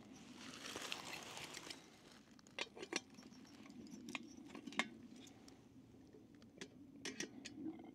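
Scattered light clicks and taps of small objects being handled, a few at a time, with a brief soft rustle about a second in.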